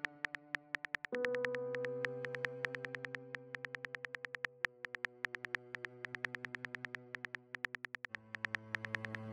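Rapid phone-keyboard typing clicks, a texting sound effect, several a second as a message is typed out. Under them a sustained synthesizer pad holds chords that change about a second in and again near the end.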